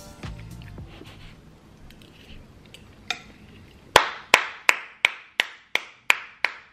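One person clapping their hands at a steady pace, about three claps a second, starting about four seconds in.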